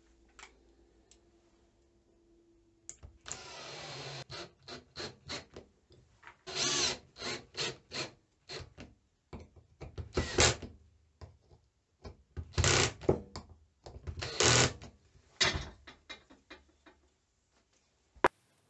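Cordless drill-driver run in repeated short trigger bursts, putting small screws through a metal blade plate into a wooden block. A sharp click comes near the end.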